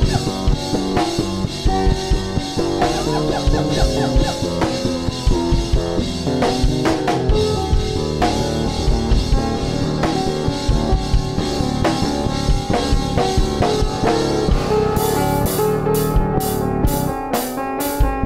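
Background music with a drum kit and guitar keeping a steady beat; in the last few seconds, sharp high hits come about twice a second.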